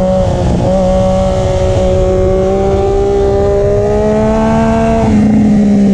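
Triumph Daytona 675's inline three-cylinder engine running at high revs through a Racefit slip-on exhaust with the catalytic converter still fitted, loud. Its pitch creeps up slowly, then drops back about five seconds in.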